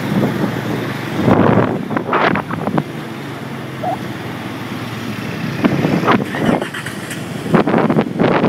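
Motor traffic passing along a flooded street, a steady rush of noise that swells as vehicles go by, three times.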